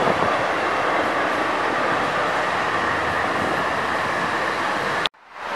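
Wiener Linien tram pulling away from the stop and running past close by: a steady rolling rumble and hiss with a faint high whine. It cuts off abruptly about five seconds in.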